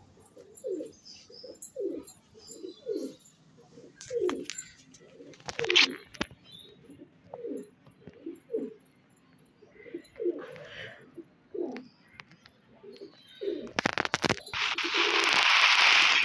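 Domestic pigeons cooing over and over, low falling coos following one another. Near the end there are a few knocks, then a loud rushing noise.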